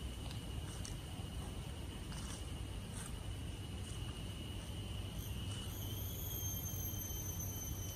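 Forest insects buzzing in a steady high thin drone, with a second, higher-pitched insect tone joining about six seconds in, over a low steady rumble.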